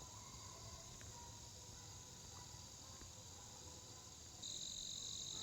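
Faint, steady high-pitched chorus of insects such as crickets, growing louder about four and a half seconds in.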